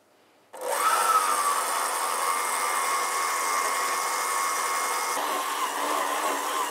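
Electric stand mixer switched on about half a second in: its motor spins up and then runs steadily with a whine while the dough hook kneads pizza dough.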